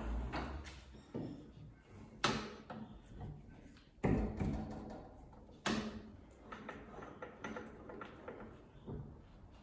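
Metal clunks and clicks from handling a lathe's tailstock-mounted die holder: three sharp knocks about two, four and five and a half seconds in, with smaller clicks between. A low hum dies away just after the start.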